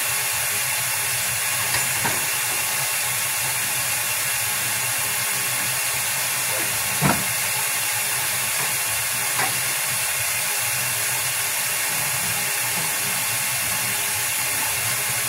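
Steady hiss of steam from pots cooking on a stovetop, with a few light knocks, the loudest about seven seconds in.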